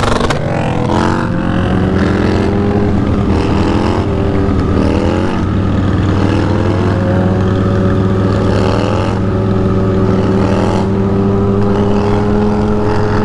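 Motorcycle engine running while riding, the revs climbing and dropping several times in the first few seconds as it accelerates and shifts, then holding a steady cruising note.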